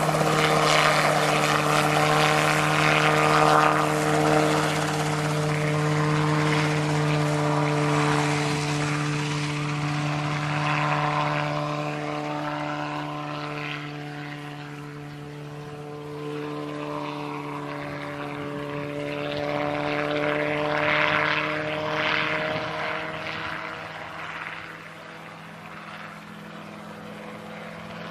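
Homemade ultralight helicopter in flight, its engine and rotor making a steady droning hum. The sound is loudest as it lifts off and fades as it flies away, swelling briefly about twenty seconds in before fading again.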